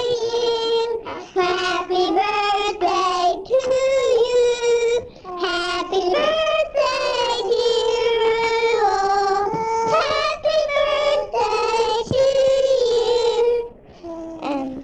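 A girl singing into a handheld microphone, holding long notes with a slight waver and breaking briefly between phrases, with no instruments heard. The singing stops shortly before the end, and a quieter voice follows.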